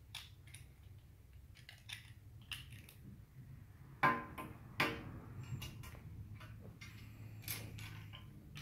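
Plastic Lego bricks clicking and clattering against a glass tabletop as they are handled and set down. There are scattered small clicks throughout, and two louder knocks about four and five seconds in.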